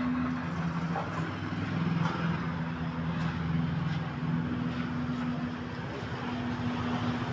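A motor vehicle engine running steadily, a low hum with a background of outdoor noise.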